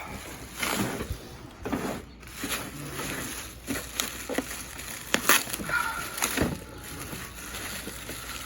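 Packaging being handled while a tower fan is unboxed: irregular rustling and crinkling, with a few sharp knocks and clunks.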